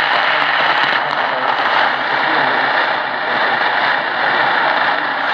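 Tecsun PL-680 portable radio's speaker giving a steady hiss of AM medium-wave static while tuned around 580 kHz, with no clear station audio coming through.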